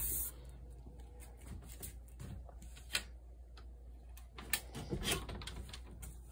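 Storm door being opened: a sharp click of the latch about three seconds in, then a few lighter clicks and knocks of the door hardware a second and a half later, over a quiet background.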